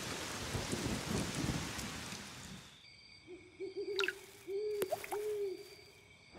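Rain falling for the first few seconds, fading away, then an owl hooting several times in a row. A single sharp water-drop plink sounds about five seconds in.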